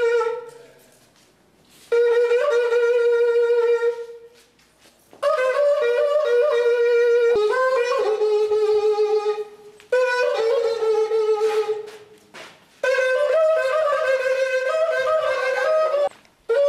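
A traditional wind instrument played in wavering phrases of two to four seconds, each cut off by a short pause, about five phrases in all.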